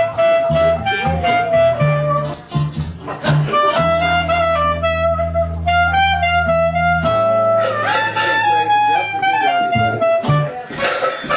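Instrumental break in a 1920s-style jazz song: a reedy, saxophone-like melody line over a low accompaniment, with one long held note in the middle.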